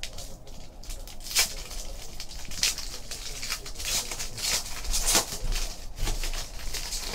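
Foil wrapper of a 2015 Panini Diamond Kings baseball card pack being torn open and crinkled by hand: a string of short crackling rustles.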